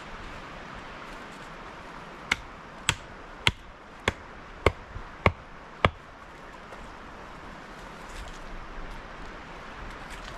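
A hand tool striking seven times in a steady rhythm, a little over half a second apart, each strike sharp with a short ring.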